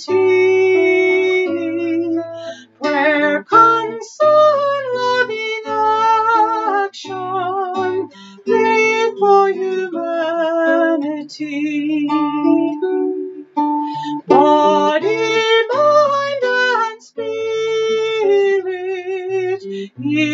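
A woman singing a hymn verse, holding notes with vibrato, while accompanying herself on a nylon-string classical guitar with plucked bass notes and chords.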